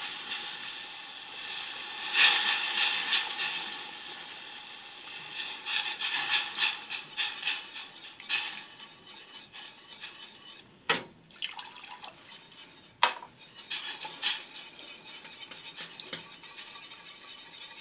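A metal utensil stirring and scraping in a stainless steel saucepan as chicken stock is poured into a hot flour-and-margarine roux to make béchamel, with a hiss at first. It goes in quick, uneven strokes, with a few sharper clinks against the pan around the middle.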